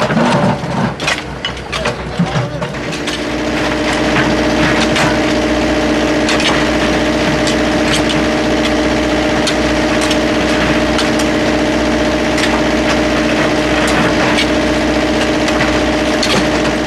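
Construction machine's engine comes up about three seconds in and then runs at a steady pitch, with irregular sharp knocks and scrapes of hard material over it, as at track work where pavement and ballast are being dug out.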